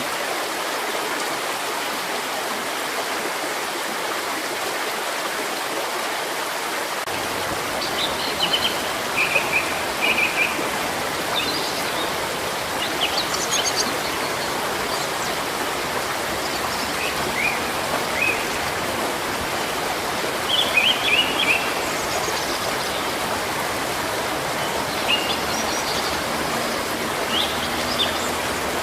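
Steady rushing of a stream. From about a quarter of the way in, small birds chirp and twitter in short scattered phrases above the water.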